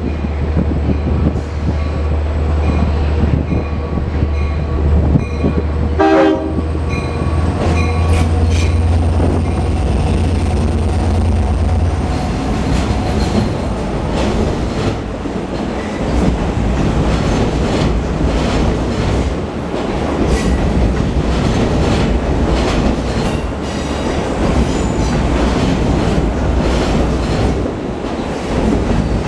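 Long Island Rail Road train moving along the platform: a steady low rumble from the locomotive for the first dozen seconds, then a short horn blast about six seconds in. After that the coaches roll past with a noisy rolling sound and wheels clicking over rail joints.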